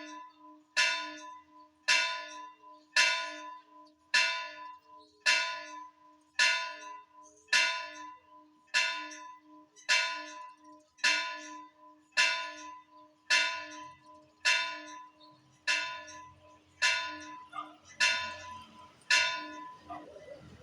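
A church bell tolling at an even pace, about one stroke a second, each stroke ringing on over a steady low hum. The strokes stop shortly before the end.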